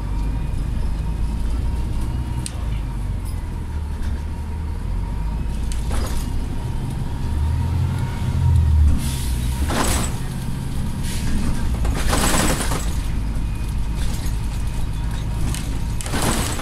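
Inside a Volvo 7000 city bus under way: a steady low engine and drivetrain rumble that swells about eight seconds in. It is broken by short bursts of air hiss around ten, twelve and sixteen seconds in.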